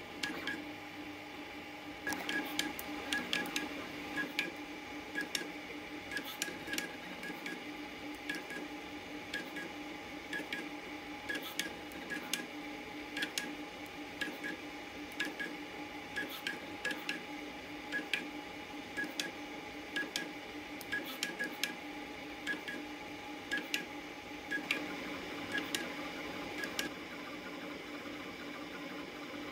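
Artillery Genius Pro FDM 3D printer running a print at 60 mm/s: a steady mechanical hum with two held tones, and from about two seconds in, frequent short sharp ticks at irregular intervals that stop near the end.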